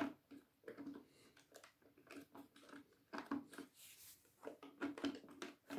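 Faint, irregular plastic clicks and taps from Roomba brushroll parts being handled and fitted into the robot.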